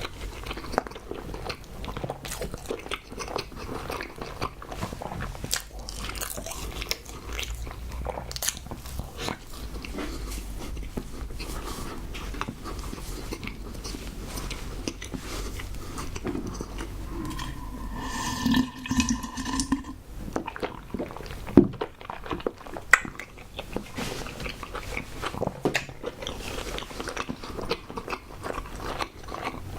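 Close-miked mouth sounds of eating: steady chewing and biting with many short, wet clicks. About 18 seconds in there is a brief pitched hum lasting a couple of seconds, and a sharp, loud click follows soon after.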